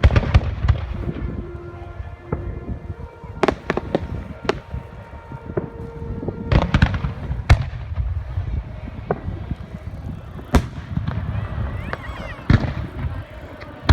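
Aerial fireworks going off: a string of sharp bangs every second or two over a continuous low rumble of booms.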